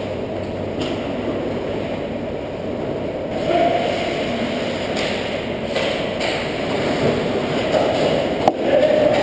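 Ice hockey play at an indoor rink: a steady low rumble with a few brief skate-blade scrapes on the ice, and one sharp knock about eight and a half seconds in as play reaches the net.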